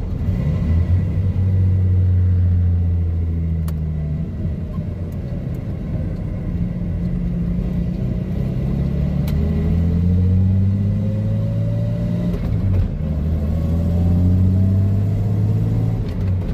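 1987 Jeep Comanche's AMC 4.0L straight-six running while the truck is driven, heard from inside the cab. Its note falls and rises with speed, dips briefly about two-thirds of the way through, then climbs again.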